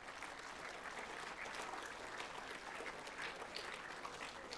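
Audience applauding: many people clapping in a steady, fairly faint round.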